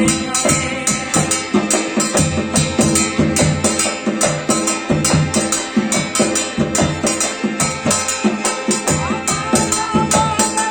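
Instrumental passage of a Rajasthani folk devotional song: a steady drum and percussion beat under a held melody line, with no singing.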